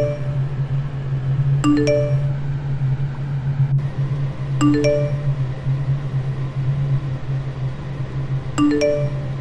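Elevator chime: a short three-note rising ding that sounds three times, about every three seconds, over a steady low hum. A single sharp click comes near the middle.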